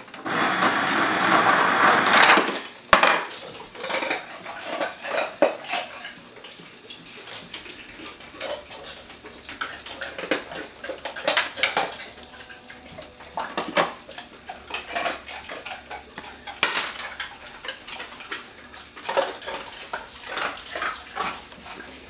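Refrigerator door ice dispenser letting out ice cubes, worked by a Great Dane pushing the lever with its muzzle. A dense clatter of ice for the first three seconds or so, then scattered clinks and clatters of cubes.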